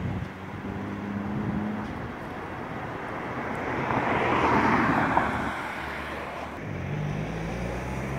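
Street traffic over a low engine hum. A car passes, swelling and fading from about three and a half to six seconds in, its tyres hissing on the wet road.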